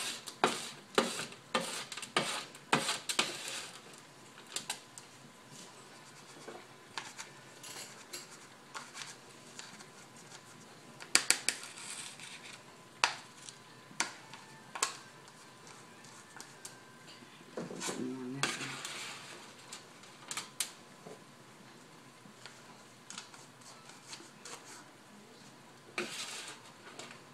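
Metal spoon scraping and clinking against a metal sheet pan and a plastic container as greasy chicken feed is scooped up and packed down. It comes as irregular clicks and scrapes, busiest in the first few seconds.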